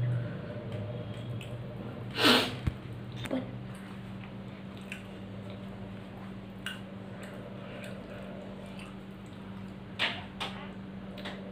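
Eating rice by hand from a ceramic plate: soft mixing and chewing sounds, with a few sharp clicks and scrapes against the plate, the loudest about two seconds in. A low steady hum runs underneath.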